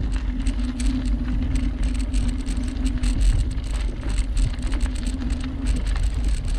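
A bicycle riding along a canal towpath, heard from a GoPro on the bike: wind rumble on the microphone and tyre noise, with frequent small clicks and rattles. A steady hum runs under it and stops near the end.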